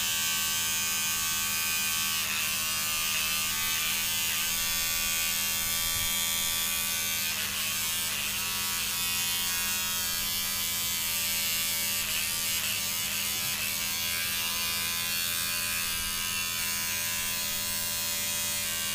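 Electric hair clipper running with a steady buzz as it cuts a fringe of hair held out on a comb.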